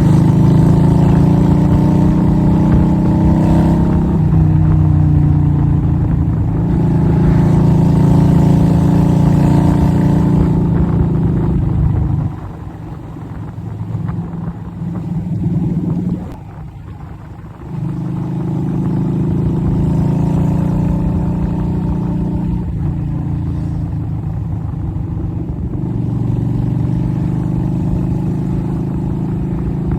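Yamaha Virago XV250's V-twin running through a straight-through exhaust on the road, its pitch gliding up under throttle and stepping down at each gear change. About twelve seconds in the throttle closes and the engine falls away to a low, quiet run for a few seconds, then picks up and pulls through the gears again.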